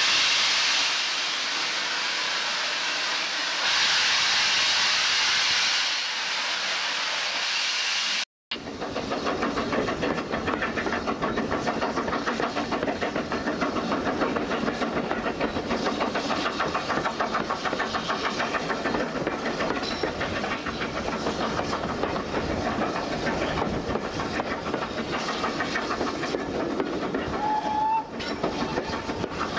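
A steam locomotive hissing out steam at rail level from around its cylinders, in gusts that swell and ease. After a sudden cut about eight seconds in, the steady, rhythmic running of the train, heard from an open carriage window, with a brief faint tone near the end.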